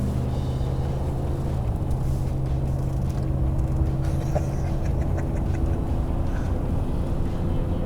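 A car's engine and road noise while driving: a steady low drone.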